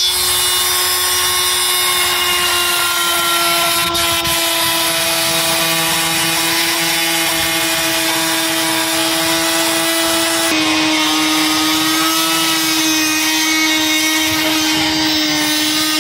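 Oscillating multi-tool with a plunge-cut blade cutting through a plywood sheet along a marked line: a steady, unbroken hum. Its pitch drops slightly about ten seconds in.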